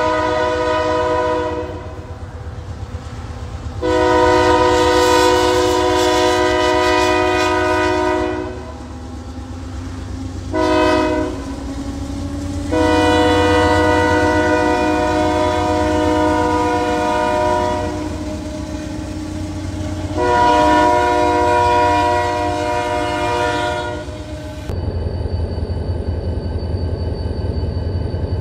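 Union Pacific diesel locomotive's air horn blowing the grade-crossing signal as the train passes: two long blasts, a short one, then long blasts, over the low rumble of the engine and rolling train. Near the end the sound changes abruptly to a steady low train rumble.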